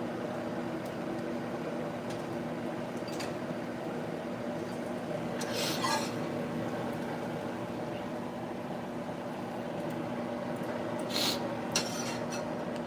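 Steady appliance hum in a kitchen, with a few brief clinks and clatters of dishes or utensils about halfway through and again near the end.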